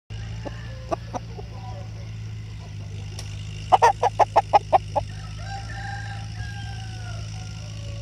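Rooster calling: a quick run of about eight loud, sharp notes a little before the middle, then a quieter, drawn-out call with a slowly wavering pitch. A steady low hum runs underneath.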